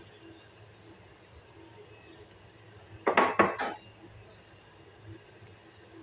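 Kitchenware clattering against dishes: three or four quick knocks about three seconds in.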